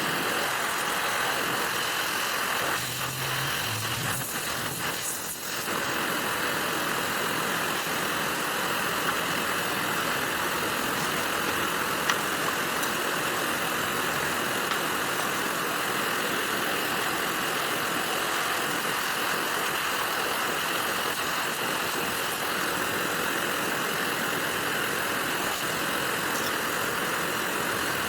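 Car engine idling steadily with a constant hiss of running machinery.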